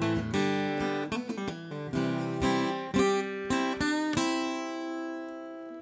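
Acoustic guitar strumming the closing chords of a song. The last chord is struck about four seconds in and left to ring and fade out.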